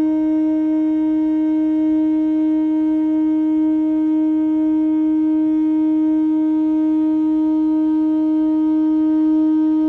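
Ship's horn sounding one long, steady blast at a single pitch, cutting off sharply near the end.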